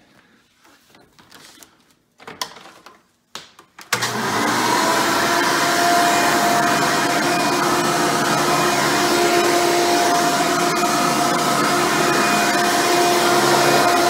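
A few soft knocks and handling sounds, then, about four seconds in, a Hoover Preferred upright vacuum cleaner starts suddenly and runs steadily on carpet. It gives a steady whine over the rush of air.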